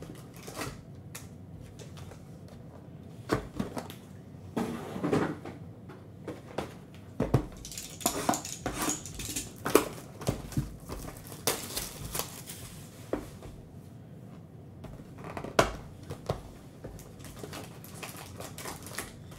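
Foil-wrapped trading-card packs rustling and crinkling as they are pulled out of a cardboard hobby box, with scattered taps and knocks of handling.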